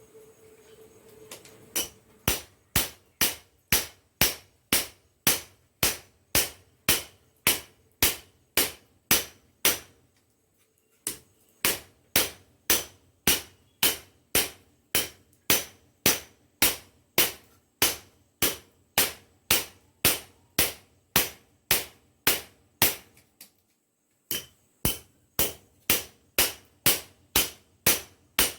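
Metal-on-metal hammering: an old wrench used as a hammer beating hot rebar on a chunk of scrap metal as an anvil. Steady sharp strikes about two a second, pausing briefly twice.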